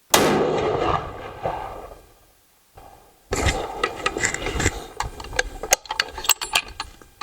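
A single .270 Winchester rifle shot, its report dying away over about two seconds, followed by several seconds of sharp clicks and scraping from handling the rifle.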